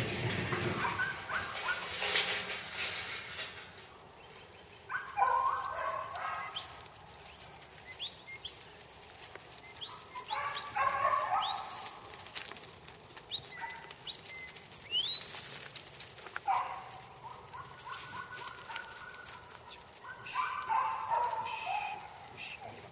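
Sheep bleating at intervals, about four wavering calls of a second or so each, with short rising chirps sounding between them. A rush of noise fills the first couple of seconds.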